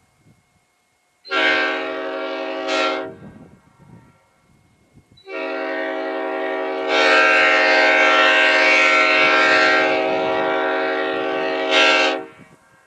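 Old-cast Nathan P5A five-chime locomotive air horn blowing a chord. It gives a short blast of about two seconds, then a long blast of about seven seconds that swells louder and brighter partway through.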